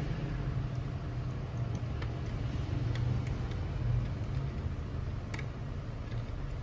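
Steady low background hum, with a few faint clicks and ticks as the wires and plastic connectors of a copier fuser unit are handled.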